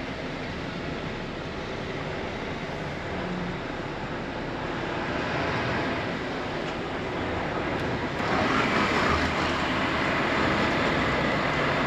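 Lorry running at low speed, heard from inside the cab as a steady rumble; about eight seconds in it suddenly gets louder and brighter.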